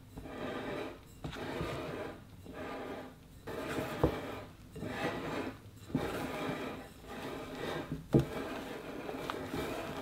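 Spatula folding chocolate sponge batter in a mixing bowl: repeated scraping strokes about once a second, with three sharp knocks of the spatula against the bowl.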